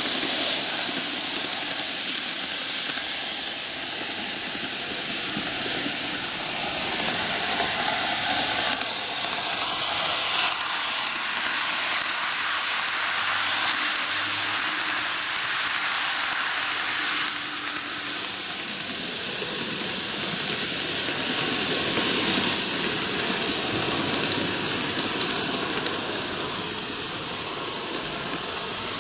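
N-gauge model electric trains running on canted model track: a steady rattling hiss of the small wheels on the rails, rising and falling as the cars pass close by.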